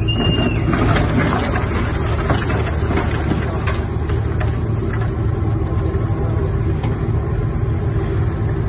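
Low steady drone of a harbour fuel vessel's engines as it rams a moored sailing yacht. A run of sharp cracks and knocks comes in the first few seconds, as its bow strikes the yacht and pins it against the quay.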